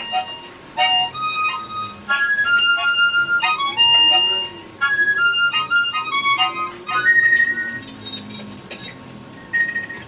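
Harmonica playing a quick melody of short single notes, ending with a held high note about seven seconds in; after that it goes quieter, with one more brief note near the end.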